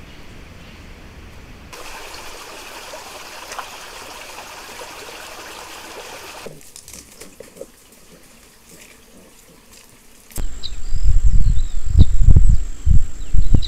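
Shallow water trickling over rocks in a small stream. About ten seconds in it gives way to loud, irregular wind buffeting on the microphone, with a thin, steady, high whine over it.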